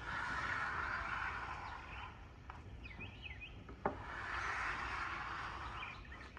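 Small birds chirping in short high calls, over a steady hiss that swells twice, with one sharp tap about four seconds in.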